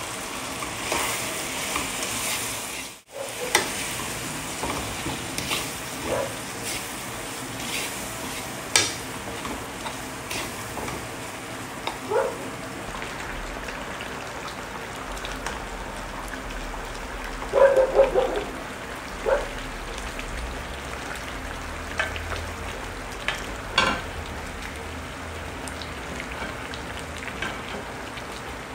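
Food sizzling in a pan on a stovetop, a steady frying hiss, with scattered knocks and scrapes of a utensil against the pan as it is stirred. The loudest cluster of knocks comes a little past halfway.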